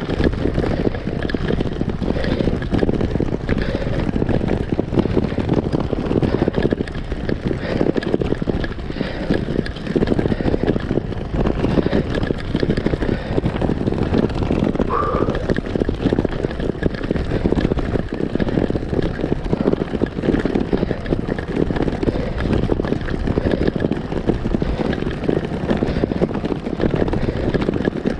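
Road bike rattling and juddering continuously over rough cobblestones, the frame and handlebars shaking with a dense, irregular clatter.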